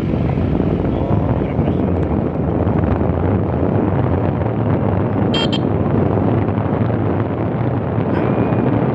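Steady running rumble of a vehicle on the move, mixed with wind buffeting the microphone. A brief, sharp, high-pitched chirp sounds once a little past halfway.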